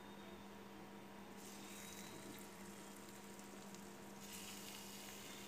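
Faint sizzle of a little oil in a metal pan as a steamed taro-leaf parcel is shallow-fried. It starts about a second and a half in, over a steady low hum.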